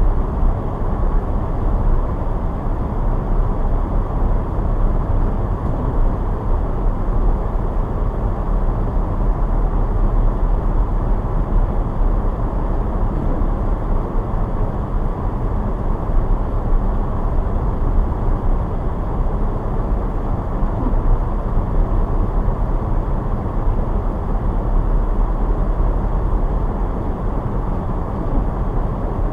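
Car driving steadily on snowy roads: a constant low rumble of tyre and engine noise, with no changes.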